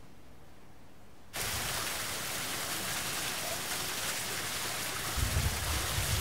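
Steady rushing noise, like running water, that starts abruptly about a second in; a low rumble joins it near the end.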